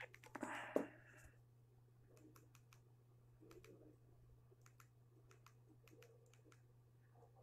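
Faint, irregular clicks of the keypad buttons on a small mobile phone being pressed, after a brief louder handling noise in the first second, over a faint steady hum.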